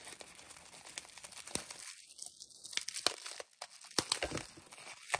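Bubble wrap crinkling and crackling in the hands as it is pulled open and unwrapped, with irregular sharp crackles throughout.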